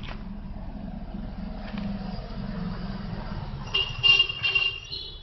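A vehicle horn sounds in a few short honks near the end, over a steady background of outdoor traffic noise.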